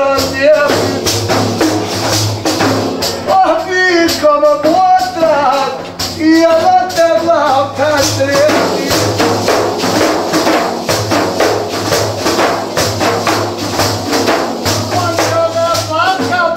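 Men singing a folk song to two large frame drums with jingles, played with a rapid, steady beat. The singing breaks off about seven seconds in and the drums play on alone, then the voice comes back near the end.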